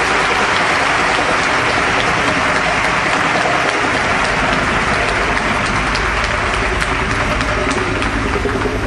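Large theatre audience applauding, a dense, steady clatter of many hands clapping at the end of the jump-rope act.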